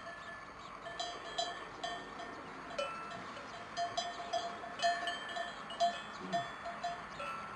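Cowbells on livestock clanking irregularly: a run of light metallic strikes, about two or three a second, each ringing briefly.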